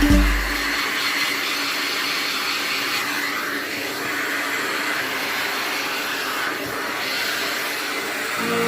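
A small electric motor running steadily with an even, airy whir and a faint high whine.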